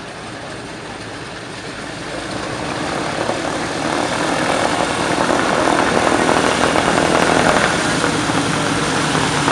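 Ford Trimotor's three radial engines running at taxi power, with a rough, rapid crackle. They grow louder from about two to five seconds in as the aircraft taxies closer, then hold steady.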